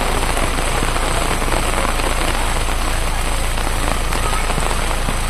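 Steady rain falling: a dense, even hiss that does not let up.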